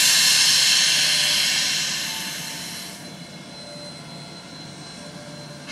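Steam locomotive hissing steam loudly, fading away over the first three seconds. The steam is escaping from what the onlookers call a bad leak around the left cylinder.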